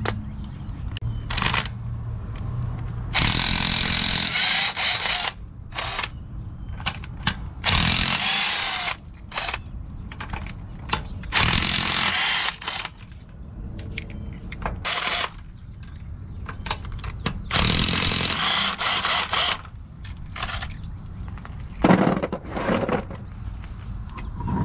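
Impact wrench running in several bursts of about a second each, spinning the lug nuts off a rear wheel.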